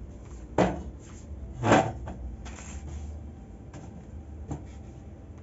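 Two knocks about a second apart, the second one louder and longer, like a cupboard or door being shut, followed by a couple of fainter clicks.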